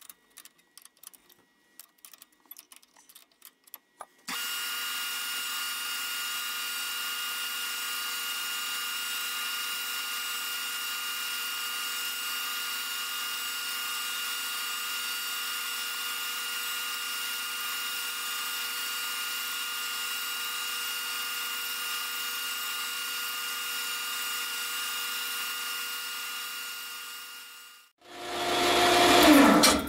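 Small benchtop metal lathe starting up with a click about four seconds in and running steadily with a constant whine while facing off the edge of a bubble-level part, then winding down near the end. Light handling clicks come before it starts, and a short loud noisy swell follows it at the very end.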